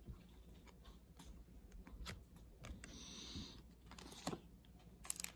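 Faint clicks and light taps of trading cards and foil packs being handled, with a brief soft rustle about three seconds in.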